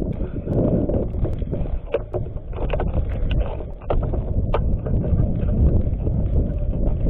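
Steady low rumbling noise with scattered sharp clicks.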